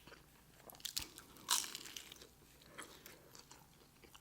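Close-up eating sounds: a person biting and chewing, with scattered small mouth clicks and a louder bite about a second and a half in.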